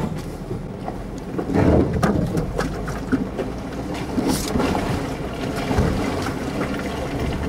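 Jeep driving slowly through mud and slush, heard from inside: engine and tyre noise with a wet, swishing rumble and a few knocks from the rutted trail.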